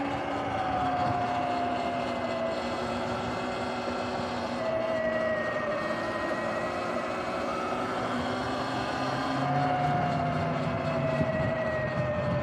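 Sur-Ron electric dirt bike on the move: the electric motor's whine over steady tyre and wind noise. The whine's pitch slides down several times as the bike slows.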